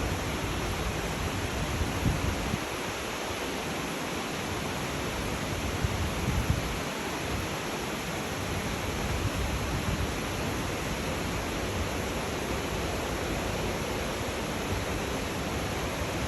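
Steady rain falling, an even hiss with occasional low rumbles underneath.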